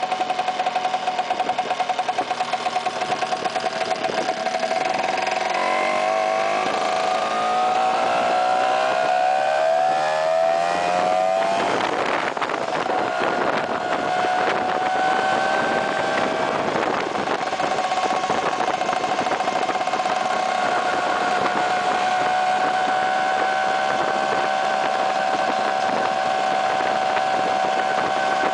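Vespa PX scooter's single-cylinder two-stroke engine under way. It rises steadily in pitch as the scooter accelerates, drops sharply about twelve seconds in as it changes gear, then runs at a steady pitch at cruising speed.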